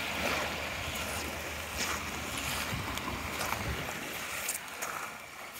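Wind rumbling on the microphone over the wash of gentle surf at the shoreline, the rumble easing after about four seconds. A few crunching footsteps on shell-strewn sand.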